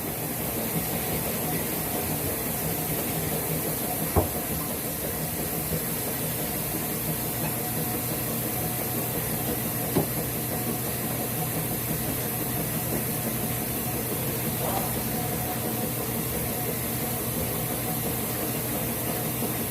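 Steady background hum and hiss with a few light knocks, about four, ten and fifteen seconds in.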